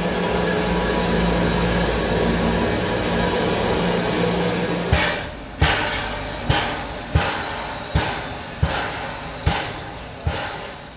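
Narrow-gauge 2-10-2 steam tank locomotive 99 1782-4: a loud steady hiss with a low hum for about five seconds, then sharp exhaust chuffs roughly every three quarters of a second, each fading into a hiss, as the locomotive works its train.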